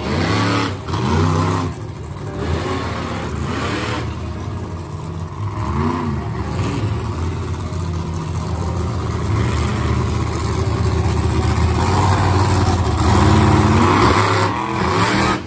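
Two monster trucks' engines revving, the pitch rising and falling again and again, loudest near the end.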